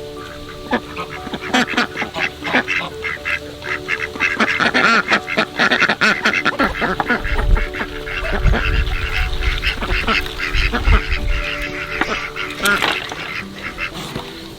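A flock of domestic waterfowl calling over and over with short, overlapping honks and quacks, busiest in the middle and thinning out near the end.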